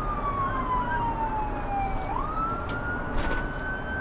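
Police car siren on a wail cycle: one tone falling slowly, then sweeping quickly back up about two seconds in and climbing slowly again, over the steady road noise of the moving patrol car.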